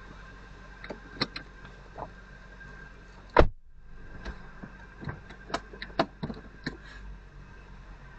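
Scattered knocks and taps over a steady background hum, with one loud thump about three and a half seconds in.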